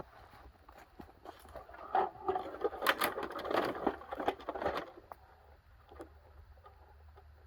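Plastic and metal parts of a dehumidifier rattling, clicking and scraping as it is pried and pulled apart by hand. A dense run of clatter starts about two seconds in and stops about five seconds in, followed by only faint clicks.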